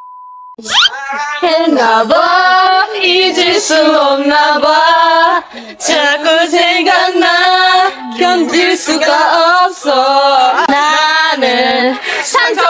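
A steady test-card beep for about half a second, then women singing a song loudly together.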